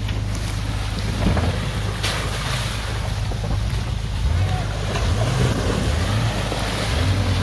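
Jeep Wrangler TJ engine running as the Jeep crawls through mud, its note rising and falling a few times as the throttle is worked. Wind and handling noise on the microphone.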